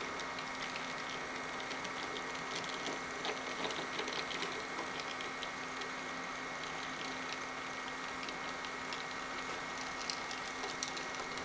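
N-scale Minitrix model steam locomotive running slowly under a newly fitted decoder: a steady motor hum with a constant tone, and light irregular clicking of the wheels over the track and the double slip switch, busiest a few seconds in and again near the end.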